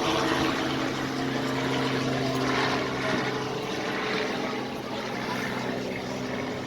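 An engine running steadily, a constant-pitch drone with several overtones over a light background hiss.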